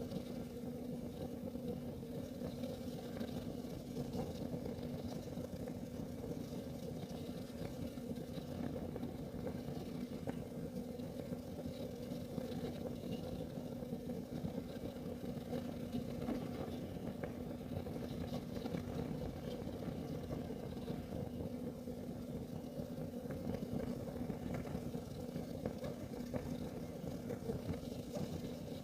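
Kerosene heater burning: a steady low rumble with a constant hum and faint, scattered crackles.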